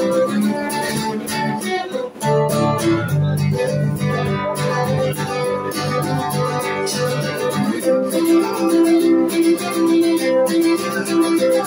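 Acoustic guitar strummed steadily in an instrumental passage of a live song, with no singing. The playing drops out briefly about two seconds in, then lower notes come in.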